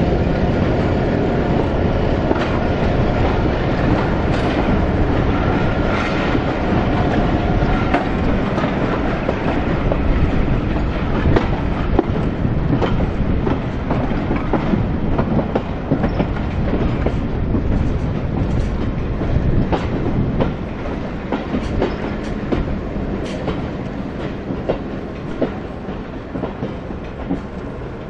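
Railway carriage wheels clattering over rail joints and pointwork, heard from a carriage window of a moving train, with many sharp clicks over a steady rumble. It grows quieter over the last several seconds.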